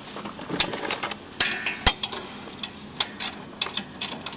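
Wrench work on a catalytic converter mounting bolt: irregular metallic clicks and clinks as the loosened bolt is worked off.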